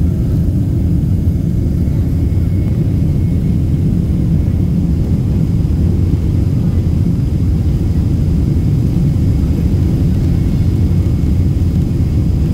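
Steady low rumble inside the cabin of a Boeing 767-300 taxiing, its jet engines running with a faint high whine above the rumble.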